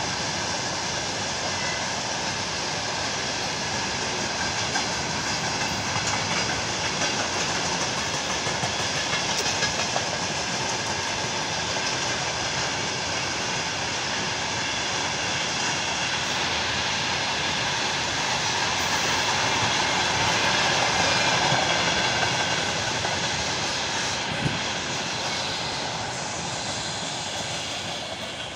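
Freight train of tank cars rolling past at speed: a steady rush of wheels on rail, swelling a little about two-thirds of the way through and fading at the very end.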